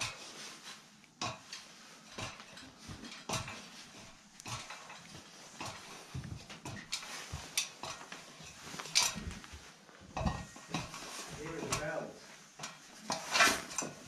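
Irregular knocks, bumps and clatters on wood from people climbing a wooden ladder up through the tower's timber floors towards the belfry.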